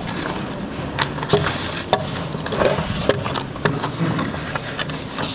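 A congregation settling into pews after being told to sit: rustling and shuffling, with scattered irregular knocks and clicks.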